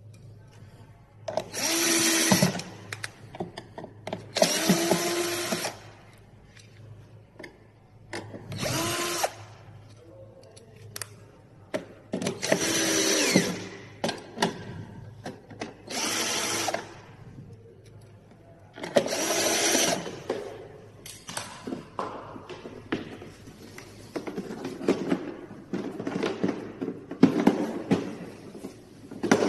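A small electric motor running in about six short bursts of one to two seconds each, its whine sliding in pitch as it speeds up and slows down, with knocks and clatter of handling between the bursts and through the last part.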